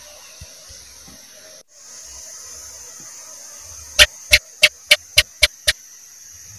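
House gecko (cicak) calling: a quick series of seven sharp chirps, about three a second, fading slightly toward the end, over a steady high hiss.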